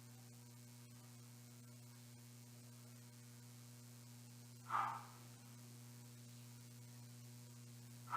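Low steady electrical hum picked up by the recording setup, with two brief soft sounds about five seconds in and at the very end.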